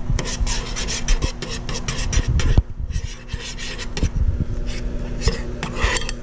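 Metal spoon stirring and scraping around a small saucepan of boiling bubble gum, in quick repeated scrapes with a short pause about halfway through.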